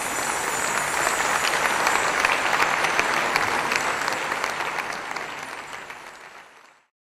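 Audience applauding, many hands clapping at once; the applause builds, then dies away and cuts off suddenly near the end.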